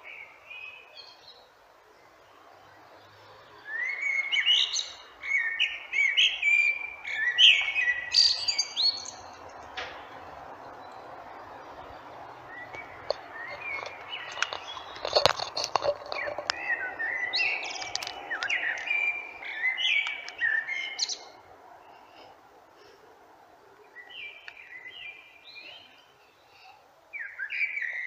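Male Eurasian blackbird singing in phrases of quick, varied whistled notes, each a few seconds long with short pauses between, over a faint steady background hiss. A single sharp click comes about halfway through.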